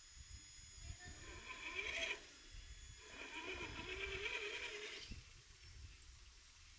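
Traxxas TRX-4 1/10-scale RC crawler's electric motor and gearbox whining as it crawls over rock, in two spells of throttle: one about a second in, one from about three to five seconds. The pitch wavers with the throttle.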